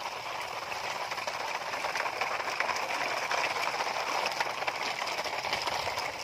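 Plastic toy dump trucks loaded with gravel rolling over wet, gritty dirt: a steady rattling and crunching of the plastic wheels and loads over the grit.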